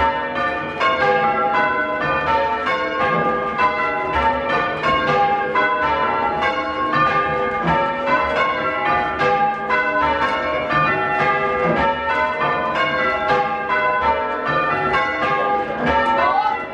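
Change ringing on a ring of six church bells (tenor 8-3-22 cwt, tuned to G), heard from the ringing room below them. The strokes follow one another in a steady, even stream without a break.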